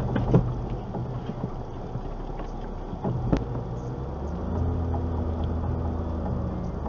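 Car engine running, heard from inside the cabin, with a sharp click a little over three seconds in. About four seconds in the engine's hum grows louder and steadier as the car moves off.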